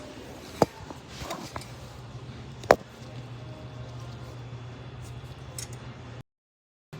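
A few sharp clicks and knocks of hand tools being worked on sink drain fittings, over a steady low hum. The sound cuts out abruptly for a moment near the end.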